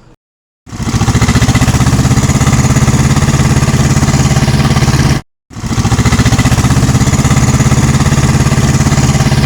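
Pneumatic jackhammer running on compressed air, a loud, fast, even hammering that starts about half a second in and breaks off briefly about five seconds in before going on.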